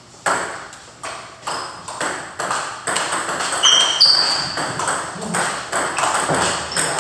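Celluloid-style table tennis balls clicking off paddles and tables, a quick irregular patter of about two to three hits a second from rallies on two tables at once. A few short high squeaks occur in the middle.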